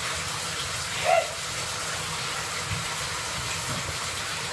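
Bathtub faucet running, water pouring steadily into the tub with an even hiss. A brief louder sound stands out about a second in.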